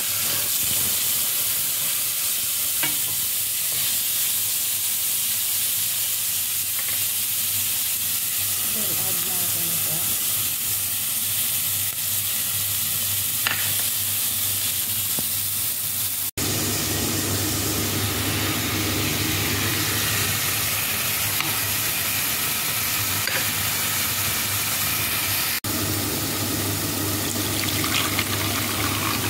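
Chopped onion and tomato sizzling in hot oil in a nonstick wok while being stirred with a wooden spatula: a steady frying hiss, broken twice by brief dropouts.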